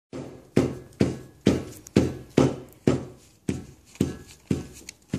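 Dot marker dabbed onto paper on a tabletop: a steady run of taps about two a second, the last few lighter.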